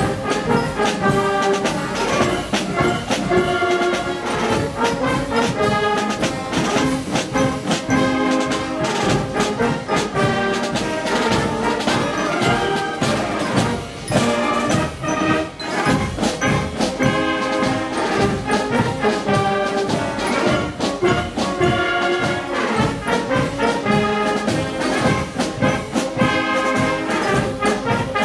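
A massed wind band of many players performing traditional brass band music: trumpets, trombones, tubas, clarinets and flutes playing together over steady bass drum and snare beats.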